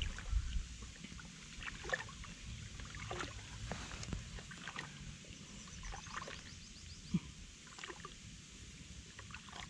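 Faint water sloshing and light splashing, with scattered small knocks and clicks.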